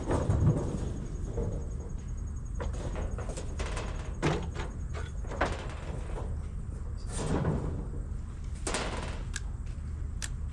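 Irregular knocks, clunks and rattles of building materials being handled and fitted: a cut piece of steel being set in place on a wooden frame. A steady low hum runs underneath.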